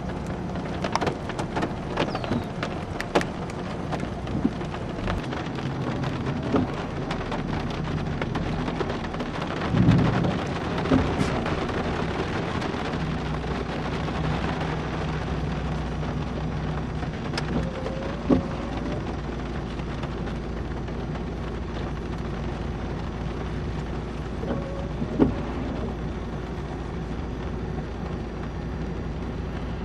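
Heavy rain pelting a car during a thunderstorm, a steady hiss with scattered sharp ticks of drops over a low road and engine hum. A louder low rumble comes about ten seconds in.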